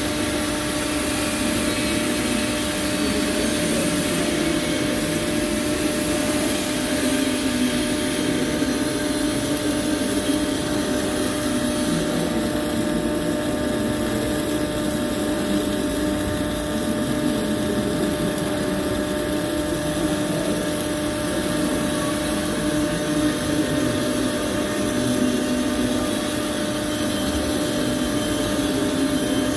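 Steady mechanical hum with a constant hiss and a few fixed tones, unchanging throughout.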